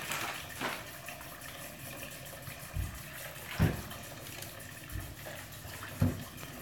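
Water running from a kitchen tap at the sink, a steady splashing hiss, with a few dull knocks about three, three and a half and six seconds in.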